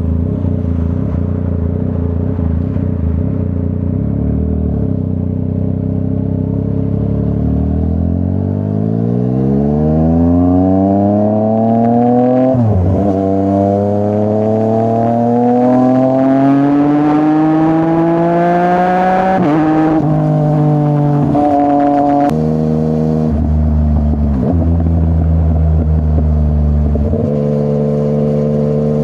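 Yamaha MT-09's CP3 three-cylinder engine through a full Akrapovic exhaust, heard from the rider's seat. It runs steadily at low revs, then pulls hard from about eight seconds in, the note rising through the revs with two quick drops at upshifts, before settling to steadier running with a few smaller throttle changes.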